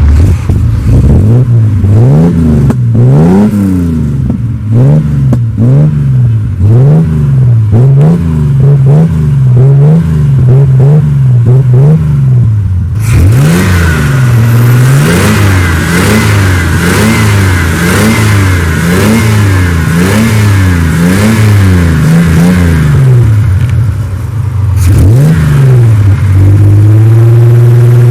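1979 Chevrolet Caravan's six-cylinder engine being revved in short throttle blips, about one a second, its pitch climbing and falling over and over. Near the end it holds a steadier, faster speed before one more rise.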